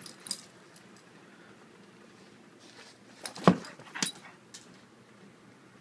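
Pit bull scuffling while chasing its tail: a few short, sharp knocks and clicks over a quiet background, the loudest about three and a half seconds in and another half a second after it.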